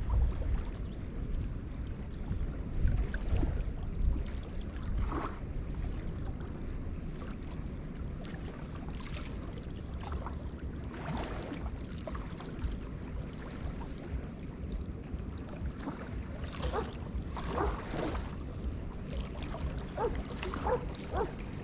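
Small river waves lapping and splashing irregularly against the shore, over a steady low wind rumble on the microphone; the splashes come more often near the end.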